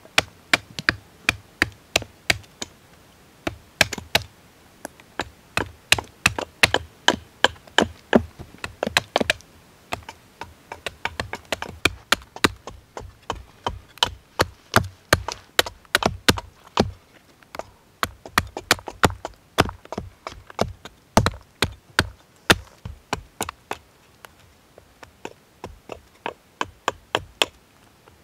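Hatchet blade chopping a point onto a green wooden stake braced against a log: sharp woody strikes, about two to three a second, with a few short pauses.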